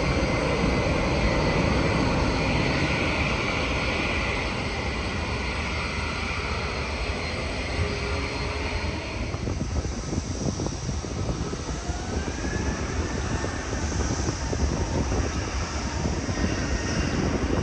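Airliner jet engines as a plane comes in to land: a loud rush with a high whine that fades about halfway through, leaving a low rumble.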